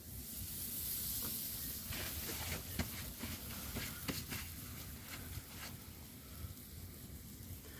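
Scotch fillet steak sizzling as it goes onto a hanging wire grill over a wood fire. A steady high hiss swells as the meat lands, with scattered crackles and pops of fat and burning wood for the first few seconds.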